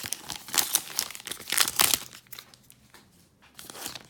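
A trading-card pack wrapper crinkling and tearing as it is pulled open from both sides. The crackling is dense and loud for about the first two seconds, then dies down to a few faint rustles, with one short rustle near the end.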